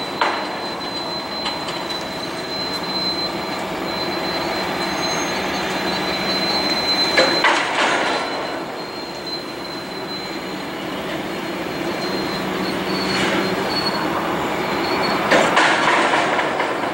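Freight train with diesel locomotives rolling slowly past, its wheels giving a steady high-pitched squeal over the rumble of the cars and the running engines. The noise swells louder twice, about halfway and near the end.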